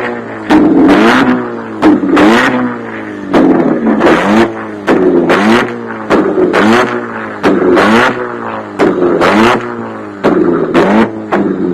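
Modified car engine blipped again and again in quick short revs, each rising and falling in pitch, over a steady idle drone, with sharp exhaust bangs between the blips: the firing of an exhaust flame-thrower kit.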